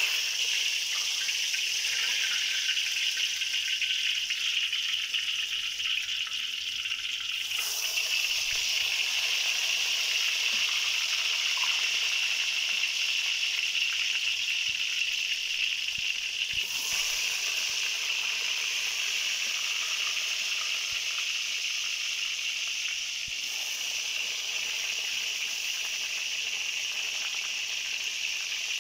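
Slices of wet, garlic-and-salt-seasoned tempe sizzling steadily in hot frying oil. The sizzle swells a little about eight and again about seventeen seconds in, as more pieces go into the oil.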